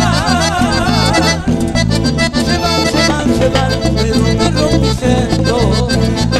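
Live cumbia band music: a wavering lead melody over a steady, repeating bass and drum beat.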